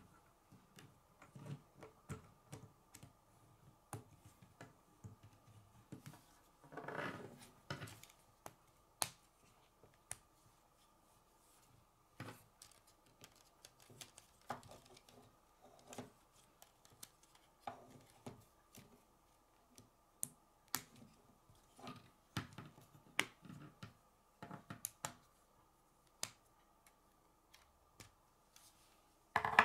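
K'nex plastic rods and connectors being handled and snapped together: irregular sharp clicks and light rattles, with a longer scraping rustle about seven seconds in, over a faint steady hum.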